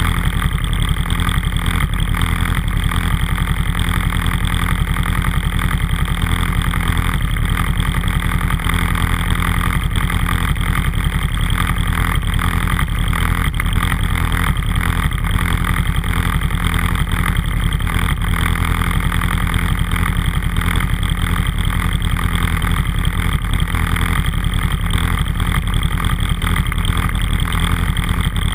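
Off-road vehicle's engine idling steadily while the machine stands still.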